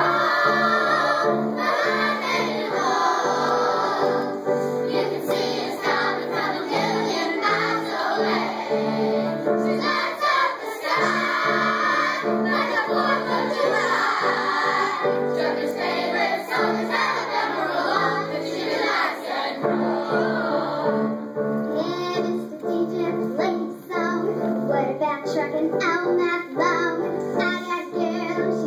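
Upbeat song with a steady, repeating bass line in the accompaniment, and children singing along.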